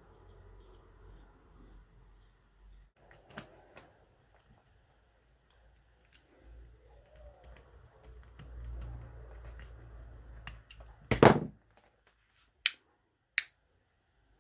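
Small clicks and scraping as screwdrivers tighten the screws of a plastic inline cord switch housing, with a louder knock about eleven seconds in and two sharp clicks near the end.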